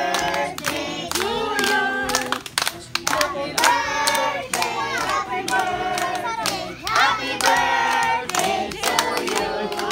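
A group of adults and children singing together while clapping their hands, many sharp claps over the voices.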